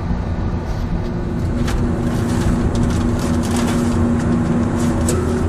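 Clear plastic parts bag crinkling in short bursts as it is opened and handled, over a steady machinery hum with a low drone that swells about a second and a half in.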